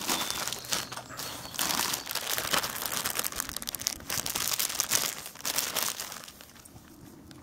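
Thin plastic bag of baby carrots crinkling and rustling in irregular bursts as it is handled and carrots are pulled out. The sound dies down about six seconds in.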